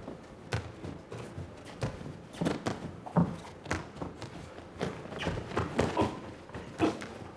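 Boxers' gloved punches thudding and their feet stepping and shuffling on the ring canvas during an exchange: irregular sharp knocks, several a second at times, the loudest a little over three seconds in.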